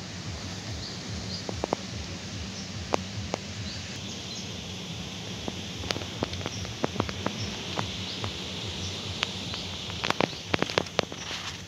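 Outdoor ambience: a steady background hiss with faint short bird chirps and many sharp clicks, the clicks coming thickest in the second half.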